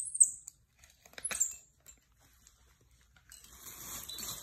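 Squirrel monkey giving short, high-pitched peeps, a couple at the start and another about a second in. From about three seconds in there is a steady hiss with faint rustling.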